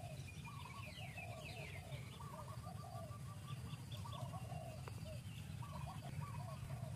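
Birds calling over and over in short chirps and whistled notes, with a run of quick falling chirps about a second in, over a steady low rumble.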